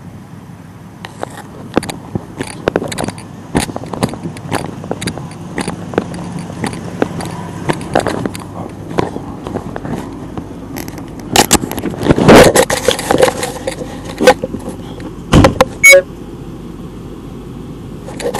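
A steady low engine hum with irregular rattling clicks and knocks over it, a louder clatter about twelve seconds in, and two sharp bangs shortly after.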